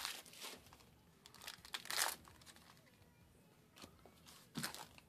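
Foil trading-card booster pack wrappers crinkling as the packs and cards are handled. The sound comes in several short bursts, the loudest about two seconds in and two more near the end.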